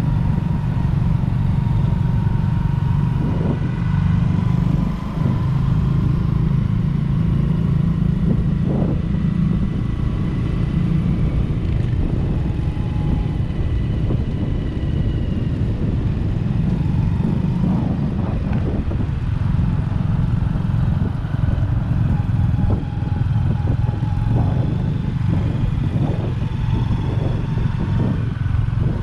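Motorcycle engine running steadily at riding speed, heard from a moving motorcycle as a continuous low rumble.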